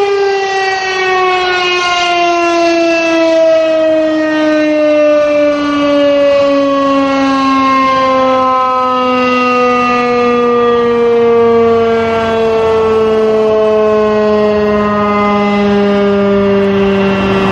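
Federal Signal RSH-10A Thunderbeam outdoor warning siren winding down. Its single loud tone slides slowly and steadily downward in pitch as the rotor coasts to a stop.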